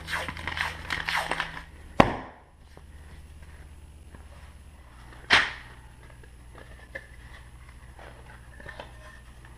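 Paper wrapper rustling on a refrigerated biscuit-dough can, then a single sharp pop about two seconds in as the cardboard tube bursts open along its seam. A second sudden knock follows a few seconds later.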